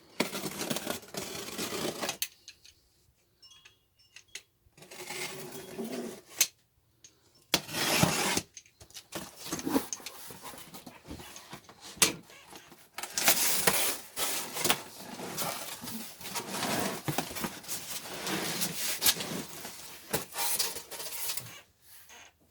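Cardboard shipping box and packing being opened and handled: rustling, scraping and tearing with sharp clicks and knocks, coming in bursts with short pauses.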